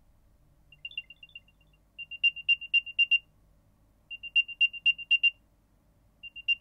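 Apple AirTag's built-in speaker playing its find-me alert: phrases of rapid, high-pitched chirps repeating about every two seconds, the first faint and the rest louder. The alert is heard through the tag's Belkin holder and sounds muffled and not very loud.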